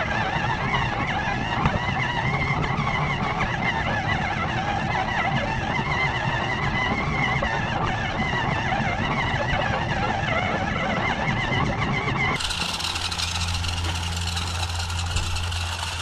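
Small 1/20-scale dual-motor RC truck's electric motors and gearboxes whining as it drives over grass, the pitch rising and falling with the throttle. About twelve seconds in the sound changes abruptly to a steadier low hum with hiss.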